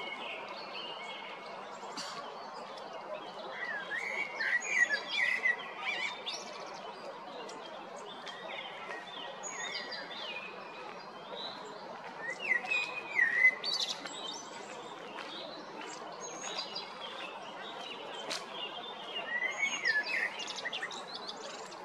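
Male common blackbird singing: three fluting phrases several seconds apart, each a low warble followed by higher twittering, over steady background noise.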